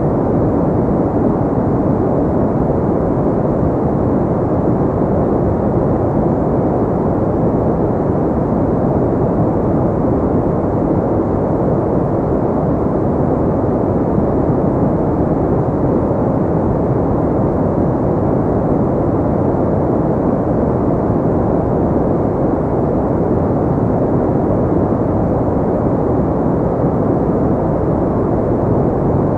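Steady generated pink noise: an even, unchanging hiss weighted toward the low end, with almost no high treble.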